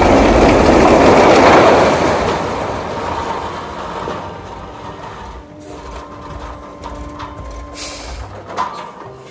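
A load of long bamboo poles sliding and clattering off a tipped truck down a bank into a ravine: a loud rushing clatter, loudest in the first couple of seconds, that fades over several seconds, with a few separate knocks near the end.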